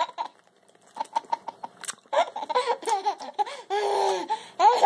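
Toddler laughing in short high-pitched bursts, with a longer drawn-out laughing squeal about four seconds in. A few soft clicks come about a second in, before the laughter starts.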